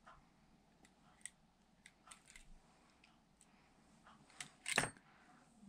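Small metal and plastic construction-toy parts clicking and clinking as they are handled, in scattered light taps, with one louder brief clatter near the end.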